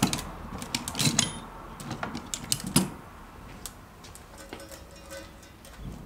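Sharp clicks and knocks of a plastic moped part and hand tools handled on a workbench, a busy run in the first three seconds and then only light scattered taps.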